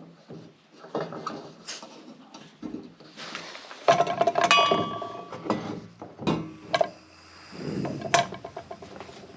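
Hard items being handled: a run of knocks and clinks, with a short metallic ringing about four seconds in, like gear such as a pot or mug being set out and knocked together.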